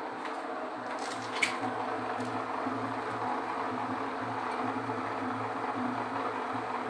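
Washing machine running with a steady electric hum, one sharp click about a second and a half in; the machine is stuck partway through its cycle and is not spinning.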